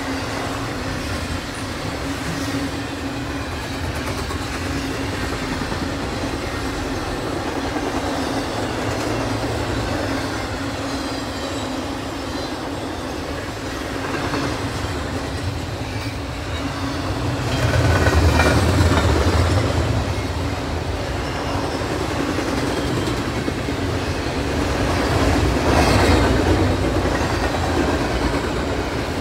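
Container well cars of an intermodal freight train rolling past: a steady rumble and clatter of steel wheels on the rails. It swells louder twice, about two-thirds of the way through and again near the end.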